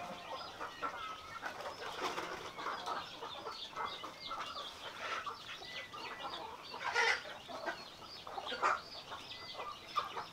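A steady background of many birds chirping, with chickens clucking, and a few brief louder rustles, the loudest about seven seconds in.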